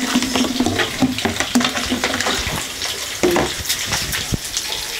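Food frying in a pan on a stovetop, sizzling steadily with scattered crackles and pops.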